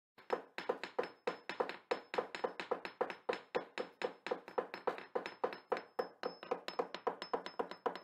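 A rhythmic run of sharp knocks or taps, about three a second at an even pace, with a faint high steady tone underneath: a percussive intro beat.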